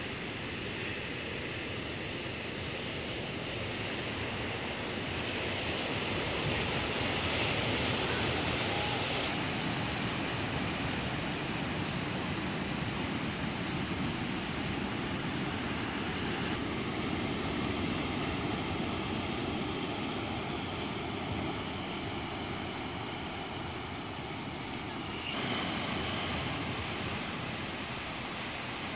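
Steady rush of ocean surf breaking on a rocky shore, its tone changing abruptly three times.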